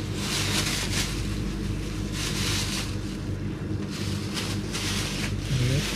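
Thin plastic shopping bag rustling and crinkling in three bursts as it is opened and handled, over a steady low hum.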